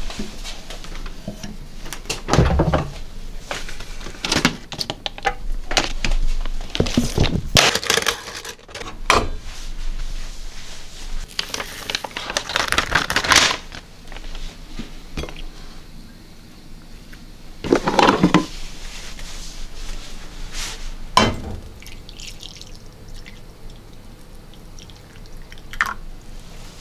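Irregular knocks and clatter, with two longer stretches of hissing, rushing noise about seven and twelve seconds in.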